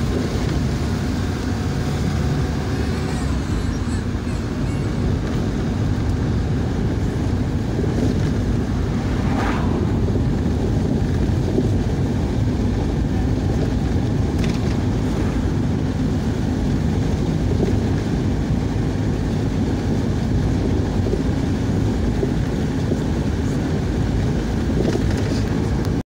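Steady engine and road noise inside a car's cabin while it drives along at an even speed.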